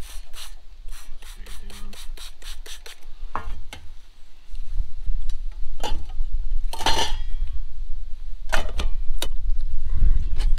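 Light clicks and taps of things being handled during a cleanup, a quick run of them at first, then a few sharper clicks and one short hiss about two-thirds of the way through, over a low rumble that sets in a little before halfway.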